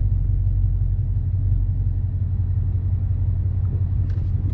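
Steady low rumble of a car heard from inside the cabin, engine and road noise with no distinct events.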